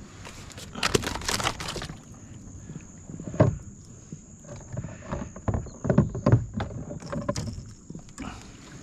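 Knocks and thumps on a kayak's hull and gear while a freshly caught gar is handled on board, with a brief rustling burst about a second in and several separate knocks after it.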